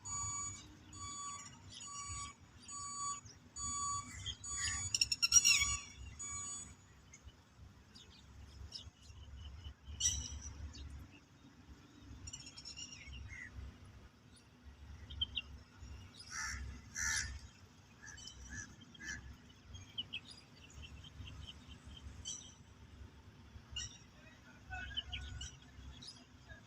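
Birds calling: a run of short, evenly spaced whistled notes repeated about twice a second for the first several seconds, then scattered chirps and short calls.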